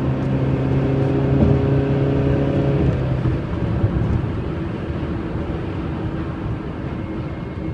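Car driving, heard from inside the cabin: steady engine drone and tyre noise. A low hum fades out about three seconds in, and the sound slowly gets quieter after that.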